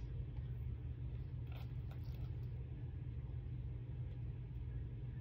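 Faint chewing and mouth sounds, a few soft brief clicks, over a steady low hum.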